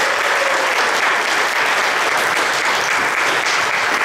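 Audience applauding steadily after the closing song.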